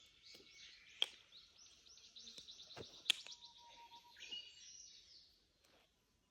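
A songbird singing a long run of quick, high chirps and trills that fade out near the end. Two sharp clacks cut through it, about one second and three seconds in.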